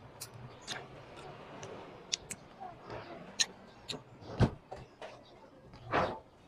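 Close-up eating sounds of someone eating fish with her fingers: scattered small wet mouth clicks and smacks while chewing. There is one sharper knock about four and a half seconds in and a brief louder smack near the end.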